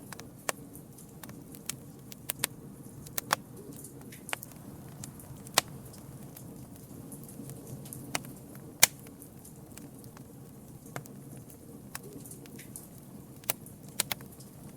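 Campfire burning, wood crackling with irregular sharp pops over a low steady rush of the flames; the loudest pop comes a little past halfway.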